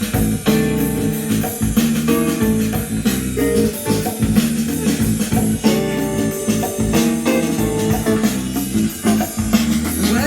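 Cool jazz music with a steady rhythm of held instrumental notes and light percussion.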